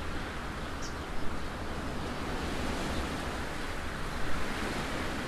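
Steady rushing wind noise.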